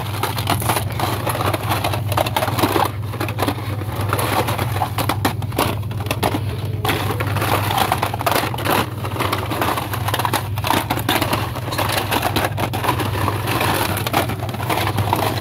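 Plastic blister packs of die-cast toy cars on cardboard backing cards crinkling and clacking against each other as they are flipped through one after another on a pegboard hook, over a steady low hum.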